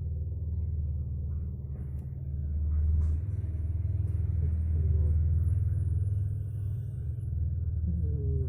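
A sleeping cat snoring loudly: a low, rattling rumble that swells and fades over a few seconds with its breathing. Near the end, a short voice-like sound bends in pitch.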